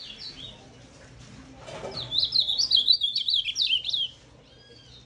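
Ultramarine grosbeak (azulão) singing its 'oi de gato' song: one loud phrase of rapid warbled notes lasting about two seconds, starting about two seconds in, with softer chirps before and after it.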